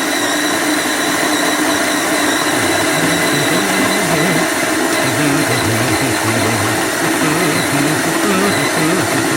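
Electric burr coffee grinder running steadily as it grinds coffee beans for an espresso shot.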